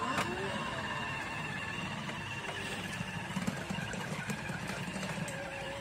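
Battery-powered children's ride-on motorcycle driving along: the steady whir of its small electric drive motor and gearbox over the rumble of hard plastic wheels rolling on a pebble-aggregate patio.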